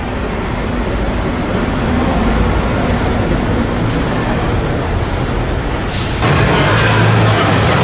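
Steady engine noise with a low rumble, jumping suddenly louder and fuller about six seconds in.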